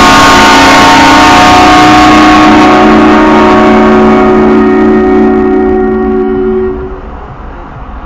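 HornBlasters train-horn kit on a car sounding one long, very loud blast: a chord of several steady notes held for about seven seconds, then cut off. Blown inside a road tunnel.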